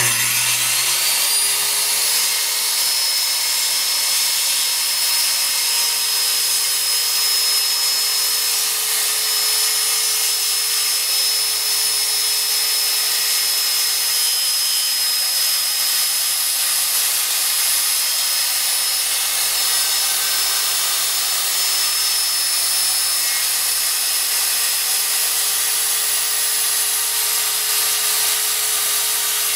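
Corded circular saw spinning up and then running steadily as it cuts a line through the van's wooden floor, its blade set shallow so it stays in the wood and clears the metal below.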